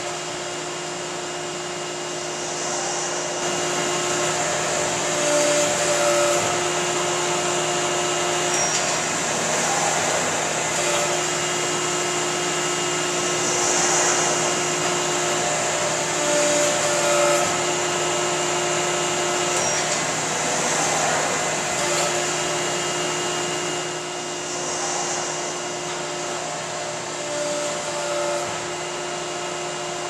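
Schwabe hydraulic die cutting press running: a loud, steady whirring hum, with tones that come and go and a few faint clicks repeating every several seconds as the press cycles through feeding and cutting thick insulation.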